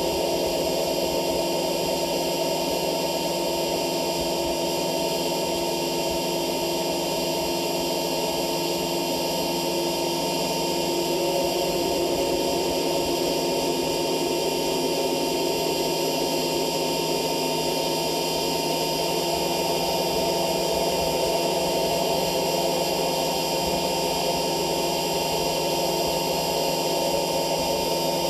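Droning noise music: a dense, steady wall of many held tones over a hiss, with no beat or breaks.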